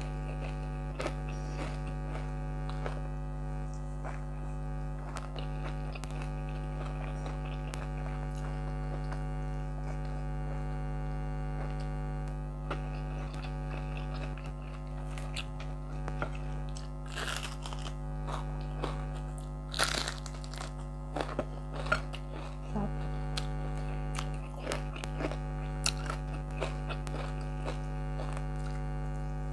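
An air conditioner hums steadily throughout. Over it come close-up chewing and crunching of fried fish and rice, with several louder crunches in the second half.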